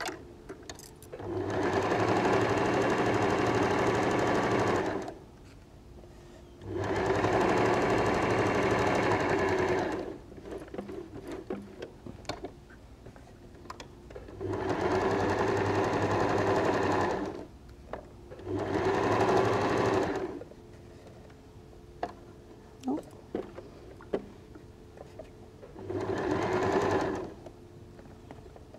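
Domestic electric sewing machine stitching a seam, running in five spurts of a few seconds each with short stops between them, and a few small clicks in the pauses.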